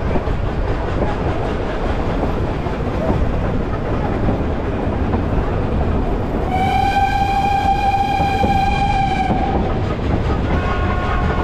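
Train running on the rails with a steady rumble and clickety-clack. About six seconds in, the steam locomotive's whistle sounds one long steady note for about three seconds. Near the end a second, shorter and fainter blast begins.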